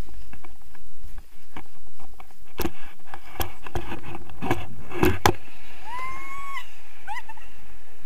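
Wind rushing over a camera microphone during a tandem paraglider launch, with sharp knocks and rattles from the harness and hand-held camera pole in the first half. Near the end there is a short high steady tone, then a few quick rising chirps.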